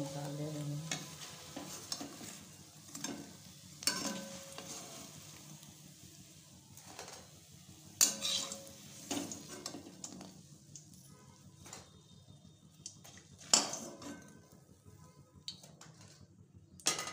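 A metal spoon knocking and scraping against a kadai, each knock ringing briefly, about every few seconds, as fried besan pakoras are lifted out of the hot oil. Between the knocks the oil sizzles softly.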